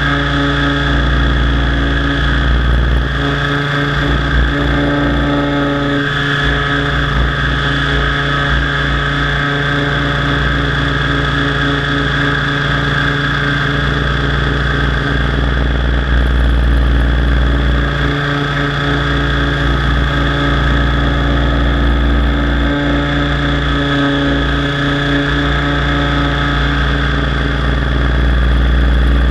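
T-Rex 700 DFC radio-controlled helicopter in flight, heard from its onboard camera: a steady mechanical whine of motor, gears and rotors, with a low rumble that comes and goes.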